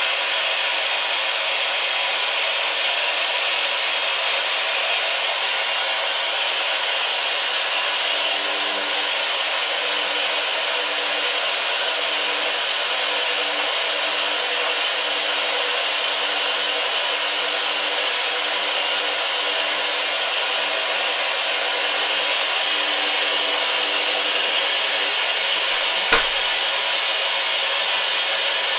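Hoover washing machine on its final rinse, with a steady rushing hiss of water running in. A faint hum joins about eight seconds in and fades near the end, and a single sharp click comes near the end.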